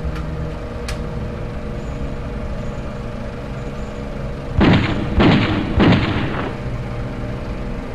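Three loud bangs in quick succession, each with a short ringing tail, over a low steady drone.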